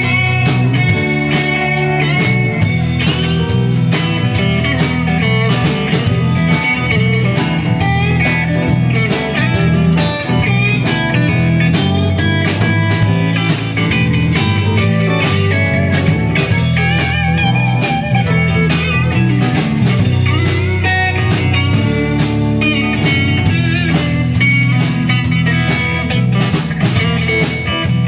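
Live rock band playing: electric guitars, electric bass and drum kit with a steady beat, and a lead line with bending, wavering notes.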